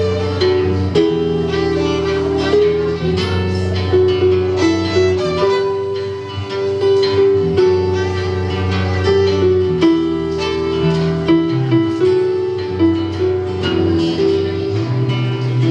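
A live rock band playing an instrumental break: a sustained lead melody moving in held notes over strummed guitar and bass.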